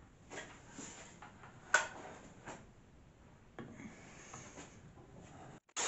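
Handling noises of a plunge router being set down and positioned on a guitar body and its routing template, before the motor is switched on: scattered rubs and light knocks, with one sharp knock a little under two seconds in.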